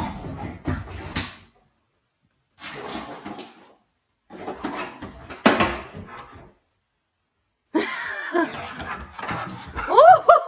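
A pit bull running about on carpet and furniture: short bursts of thumps and scuffling paws. Near the end comes a loud voice-like sound whose pitch swings up and down.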